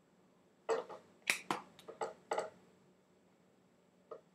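Trading cards being handled and flicked through by hand: a quick run of sharp clicks and snaps about a second in, then a single click near the end.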